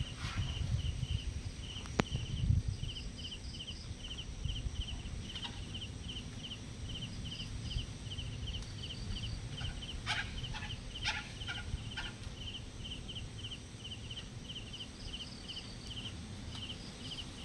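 An insect chirping steadily in a high, regular rhythm, about two chirps a second, over a low rumbling background. A few sharp crackling snaps come partway through.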